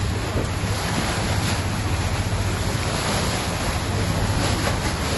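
Steady wind buffeting the microphone on the open deck of a moving tour boat, with water rushing along the hull and a low, even rumble underneath.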